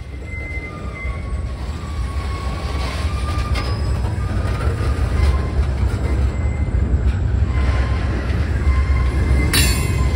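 Freight train of open-top hopper cars rolling past close by: steady heavy rumble of steel wheels on the rails, with thin high wheel squeals in the first few seconds and a short sharp metallic screech near the end.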